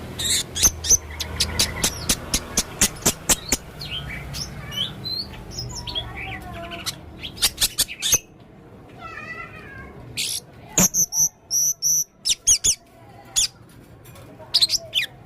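Male blue-crowned hanging parrot (serindit) calling actively: a fast run of sharp, high-pitched chirps, then a mix of varied squeaky notes and short repeated high chirps.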